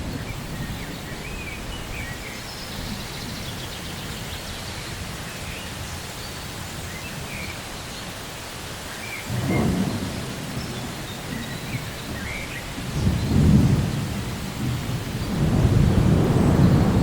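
Steady rain falling, with rumbles of thunder: a short one about halfway through, then longer, louder rolls near the end.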